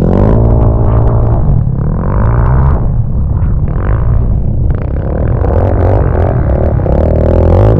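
Yamaha sport ATV's single-cylinder four-stroke engine under throttle: the revs drop just after the start, run lower and uneven through the middle, then rise again near the end.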